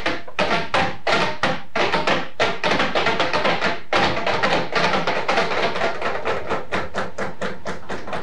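Percussion music with a fast, steady beat of sharp strikes over a ringing pitched layer.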